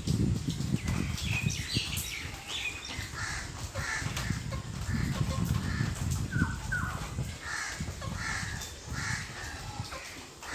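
Crows cawing repeatedly in the background, a string of short harsh calls, over a steady low rumble.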